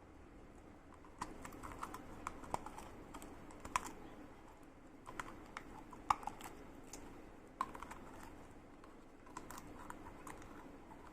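Slime being handled, with irregular soft clicks and pops, sometimes several in quick succession.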